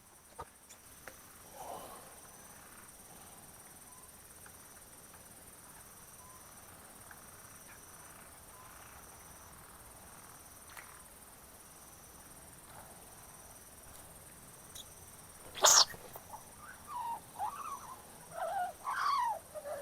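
Quiet night ambience with a faint, steady, pulsing insect chirring. A single sharp click comes about sixteen seconds in, followed near the end by a few short, wavering calls.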